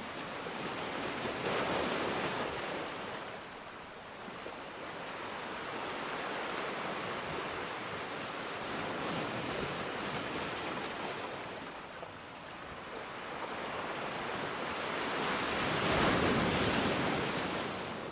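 Sea waves breaking and washing up a beach over a steady hiss. The surf swells louder about two seconds in and again, most strongly, near the end.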